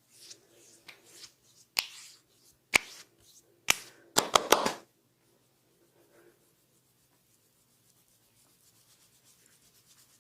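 Hands working a head massage: soft rubbing, then sharp hand strikes, three single ones about a second apart followed by a quick run of four.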